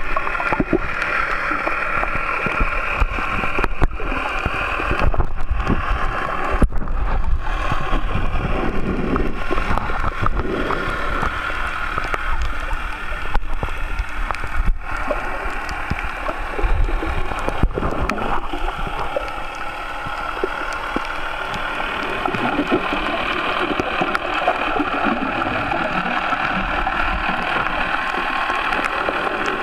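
Muffled, steady rush and gurgle of water heard by a camera held underwater while snorkelling, with bubbles streaming past.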